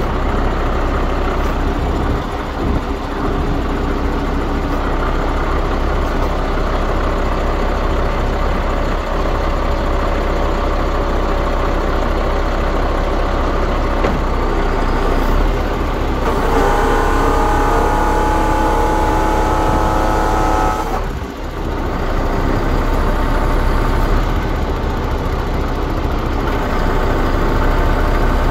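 MAN TGS 26.440 truck's diesel engine running while its hooklift's hydraulics move the arm. A whine of several steady tones joins in for about four seconds past the middle.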